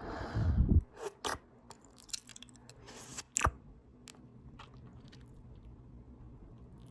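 Close-miked open-mouth chewing of a potato taco bowl: wet smacks and clicks of the mouth and tongue, with a loud low breathy rush right at the start. The mouth sounds thin out after about three and a half seconds.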